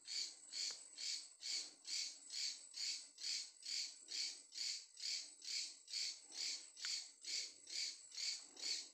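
Night insects calling in a steady, even rhythm of about two high-pitched pulses a second.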